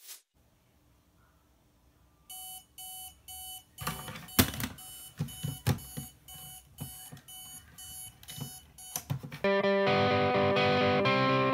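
An alarm beeping in short, evenly repeated pulses about twice a second, with loud knocks as a hand fumbles at the bedside table to silence it. About nine seconds in the beeping stops and loud electric guitar music starts.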